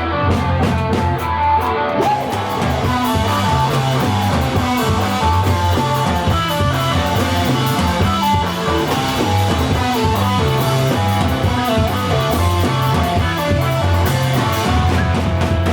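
Live rock band playing an instrumental passage: guitar lines over a moving bass line and drum kit. About two seconds in, the drums go from separate hits to a steady wash of cymbals.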